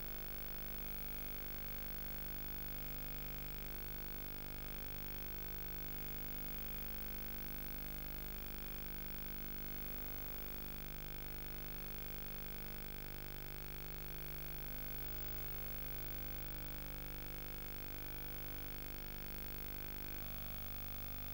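Steady electrical hum and static from a soundless tape transfer, with no programme audio.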